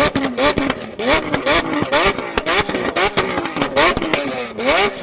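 A high-revving engine blipped over and over, its pitch sweeping up and dropping back about twice a second, with sharp exhaust pops and crackles between the revs.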